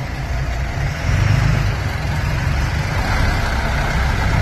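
Isuzu minibus's diesel engine running as the bus drives past close by, growing louder about a second in.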